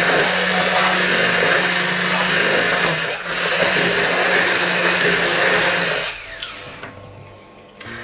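Hand-held immersion blender running in a saucepan of thin milk, leek and carrot sauce, puréeing it smooth. The motor dips briefly about three seconds in, then winds down and stops about six seconds in.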